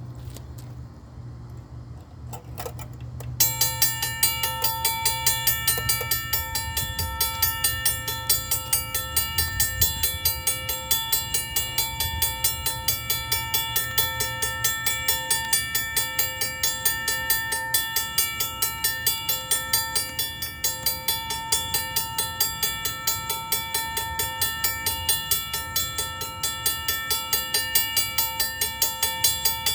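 Railroad crossing bell ringing with rapid, evenly spaced strokes, starting about three and a half seconds in after a few faint clicks.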